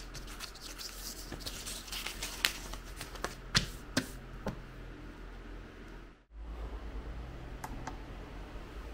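Handling noises: a run of small clicks, taps and rustles, with several sharper knocks between about three and a half and four and a half seconds in. About six seconds in the sound cuts out briefly, then a steady low hum continues with a couple of faint clicks.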